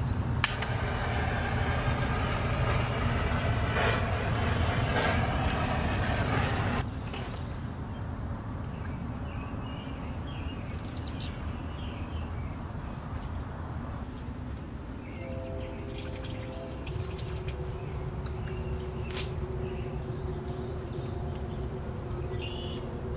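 Heat gun blowing steadily to soften the end of black poly irrigation tubing, switched off about seven seconds in. After that come faint bird calls and a few handling clicks as the tubing is worked onto the fitting.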